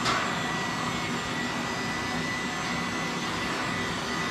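An electric blower running steadily, a rush of air with a thin, steady high whine. A short click sounds right at the start.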